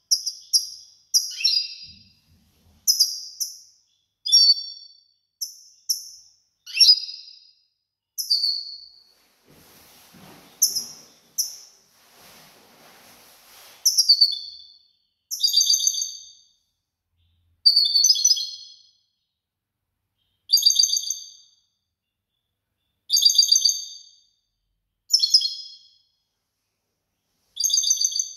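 European goldfinch singing in a cage: bright, high tinkling notes, quick and scattered for the first dozen seconds, then settling into short repeated phrases every two to three seconds.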